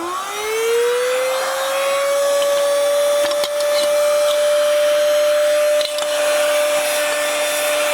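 DSPIAE handheld cordless vacuum's small motor spinning up with a rising whine over the first couple of seconds, then running steadily with a high-pitched whine and a hiss of air. A brief dip about six seconds in.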